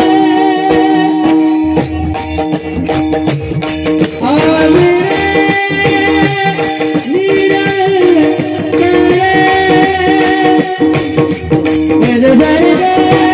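Loud Indian folk-style music played over a sound system: a gliding melody line over quick rattling percussion and bass.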